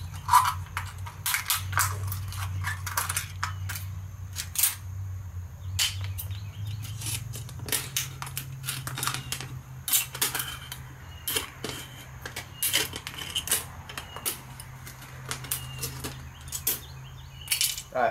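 Scissors snipping around the tops of aluminium beer cans, a long irregular run of sharp crunching clicks as the blades cut through the thin metal.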